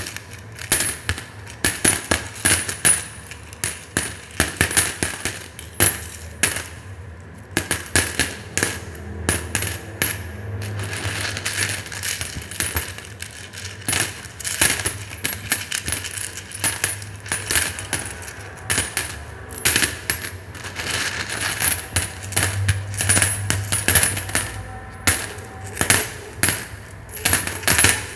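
Foley ice-cracking effect: a long, irregular run of sharp cracks, snaps and glassy clicks, some in quick clusters, made with everyday objects to imitate ice breaking.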